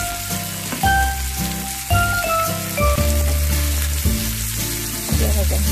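Chicken pieces sizzling in oil in a frying pan, turned with a spatula. Background music of held notes with a deep bass, changing about once a second, plays over the sizzle.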